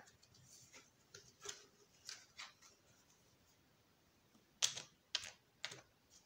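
A deck of oracle cards being handled and shuffled by hand: faint, scattered clicks of card edges, with three or four sharper clicks near the end.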